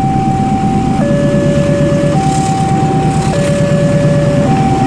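Railway level-crossing warning alarm sounding a steady two-tone high-low pattern, each tone about a second long, over the low rumble of a passing diesel train.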